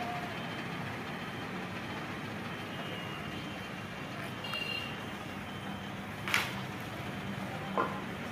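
Diesel coach engine idling, a steady low hum, with two short knocks near the end.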